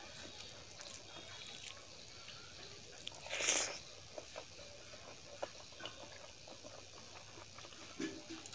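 Wet chewing and mouth smacking of rice and dal eaten by hand, with soft squelches of fingers mixing the rice. There is one louder slurp about three and a half seconds in and a short gulp near the end.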